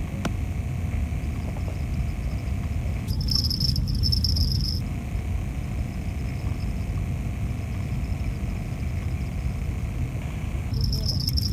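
Wind rumbling on the phone microphone, with insects chirring steadily in the background. About three seconds in, and again near the end, the chirring switches to a higher, pulsing chirp for a couple of seconds.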